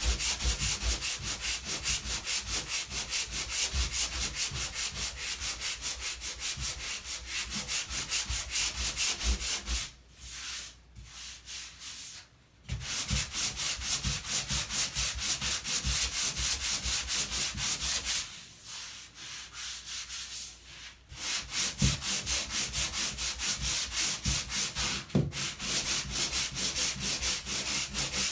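Hand sanding block rubbing back and forth over dried spackle on a drywall patch in quick, even strokes, taking down lumps and excess compound. The sanding stops twice for a couple of seconds, about ten seconds in and again near eighteen seconds.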